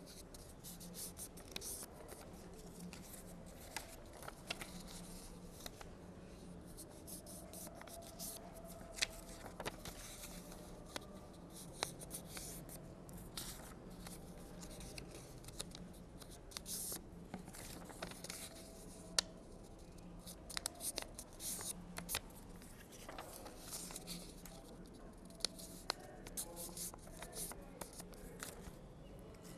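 Paper circles being folded in half and creased by hand: faint, scattered crisp clicks and short rustles of paper, with a faint steady low hum.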